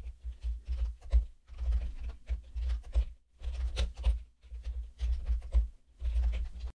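Typing on a computer keyboard: irregular runs of quick key clicks, each with a low thud, broken by short pauses.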